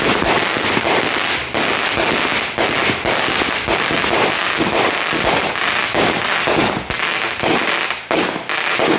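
Aerial fireworks firing in quick succession: many sharp pops, several a second, over a steady dense crackle, with no pause.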